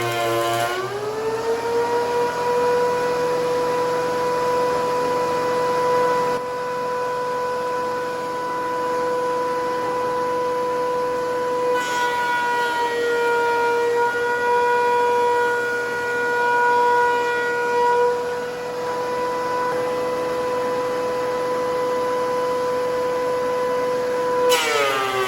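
DeWalt DW735X thickness planer running: a steady high motor-and-cutterhead whine. About a second in, the pitch rises as the board clears the cutter and the motor runs free. Near the end it drops sharply as the next pass bites and loads the motor.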